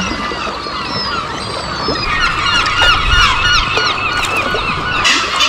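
Seabird colony calling from the cliffs: many birds crying at once in short, overlapping calls. The chorus grows busier about two seconds in.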